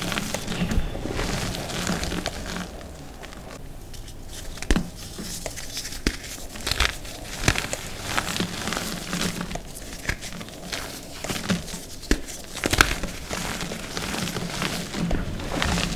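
Hands squeezing and crumbling gym chalk in loose powder: soft, dusty crunching with sharp crackles now and then, the loudest crack about three-quarters of the way through.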